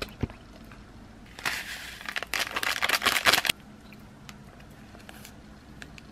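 A plastic seasoning packet crinkling and rattling as its dried flakes are shaken out over a bowl of rice, for about two seconds starting a little over a second in.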